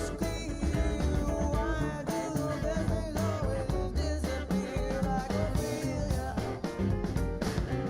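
Background song with singing over guitar and drums, steady beat.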